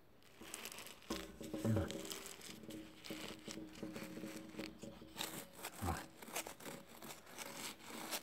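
A thin black plastic nursery pot squeezed by hand, its wall flexing and the stone-grit (granilha) potting mix inside crunching in a long run of small irregular crackles. The sound shows that the pot holds nothing but loose grit, with no soil.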